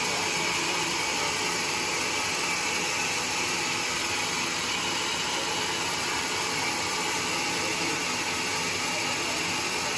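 Steady, even whooshing of sawmill machinery running without cutting, the saw's motor and blade turning freely at a constant speed.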